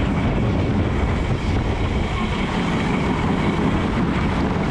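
Wind buffeting the onboard camera's microphone over water rushing along the hull of a 44 Cup racing yacht under sail. A steady, heavy rumble.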